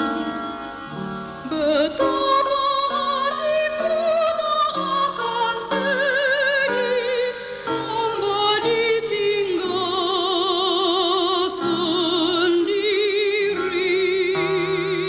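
Solemn sung music: a voice holding long notes with heavy vibrato over a sustained accompaniment, moving from note to note about once a second.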